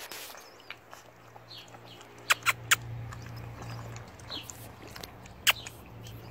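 Doberman puppies lapping milk from a plastic bowl: small wet ticks throughout, with three sharp clicks close together about two seconds in and another near the end.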